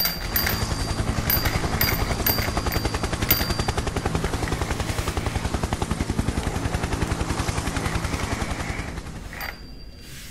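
Battery-powered toy vehicle's electronic sound effect: a fast, steady rattle like machine-gun fire or rotor chop over a low hum, with a few short high beeps in the first few seconds. It cuts out briefly near the end.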